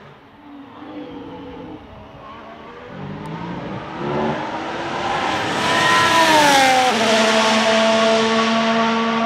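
A Ferrari F1-75 Formula 1 car's turbocharged V6 approaching at speed and growing louder, passing close about six to seven seconds in with its pitch dropping sharply, then pulling away at a steady lower pitch.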